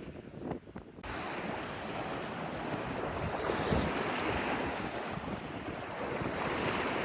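Lake waves washing onto the shore, with wind buffeting the microphone. The steady rush starts suddenly about a second in.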